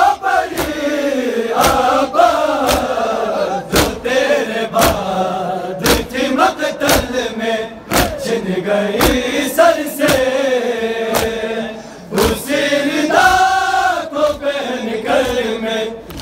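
A crowd of men chanting a noha together, with sharp slaps of hands on bare chests (matam) landing about once a second. The voices drop away briefly about three-quarters of the way through, then resume.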